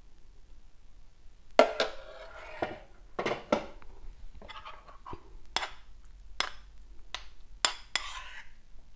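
A metal spoon clinking against a stainless-steel pot and a ceramic bowl, with the pot and bowl knocking down on the counter: about a dozen separate clinks and knocks, some ringing briefly, the first about one and a half seconds in.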